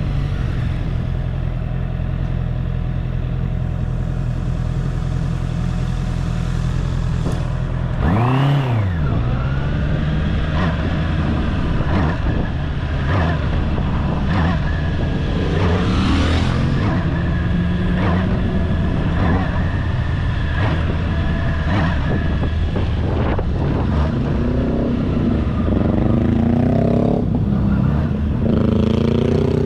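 Honda CB650R's inline-four engine being ridden at low speed, held steady at first and then revved up and back down quickly about eight seconds in. Through the rest of the stretch the pitch keeps shifting with the throttle, with a run of short rising revs near the end.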